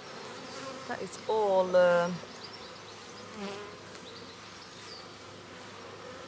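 Honeybees buzzing steadily around an opened hive while its frames are being inspected.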